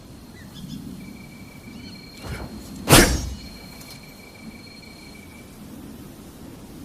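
A sword swung through the air: one sharp swish about three seconds in, with a fainter swish just before it, over a faint steady high-pitched whine.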